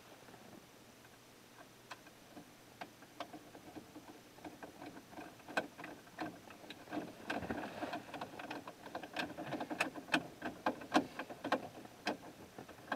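Hand screwdriver driving a screw into the radio's dash mounting kit: faint small clicks and scrapes, few at first, then a busy run of ticks from about halfway through.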